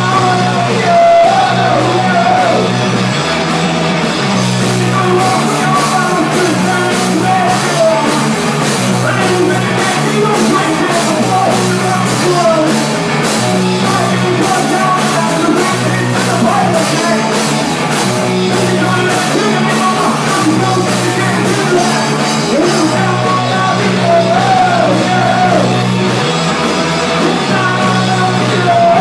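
A rock band playing a song live: electric bass guitar under a sung, partly shouted lead vocal, with steady crisp strikes keeping time through much of it.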